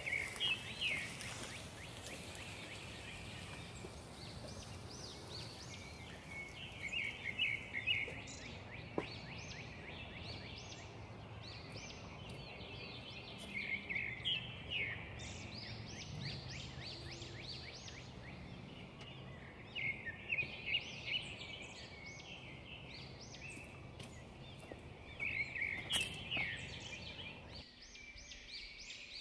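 A songbird singing short, rapid chirping phrases about five times, roughly every six seconds, over steady outdoor background noise.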